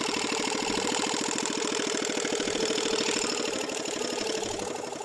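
Small outboard motor running steadily at low trolling speed, a fast even putter that is loudest for most of the stretch and eases a little near the end.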